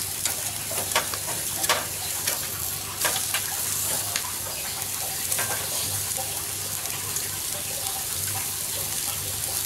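Turkey breast sizzling on a charcoal grill in a steady hiss. A few sharp clicks come in the first few seconds as metal tongs turn a piece on the grate.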